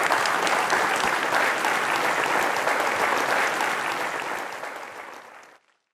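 Audience applauding, a dense patter of clapping that fades away about four to five seconds in and then cuts to silence.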